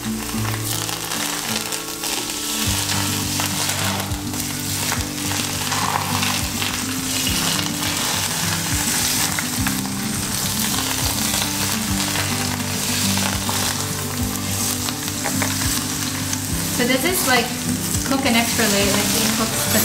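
Hot peanut oil poured over a steamed red snapper topped with chopped green onion, cilantro and garlic, sizzling steadily where it hits the herbs and soy sauce.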